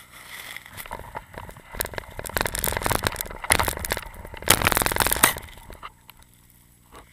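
Snow-laden tree branches brushing and scraping against the microphone, with a dense crackling of twigs and snow that builds and is heaviest near the middle before dying away about six seconds in.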